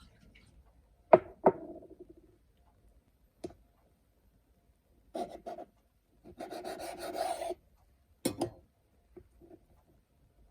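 Kitchen prep handling sounds: two sharp knocks, a click, then two stretches of rubbing or scraping, and another knock near the end.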